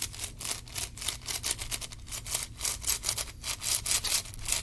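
SengSo Pillowed 11x11 puzzle cube's plastic layers being turned in quick succession, a fast, uneven run of scraping clicks. The cube is still a bit greasy from its factory lube.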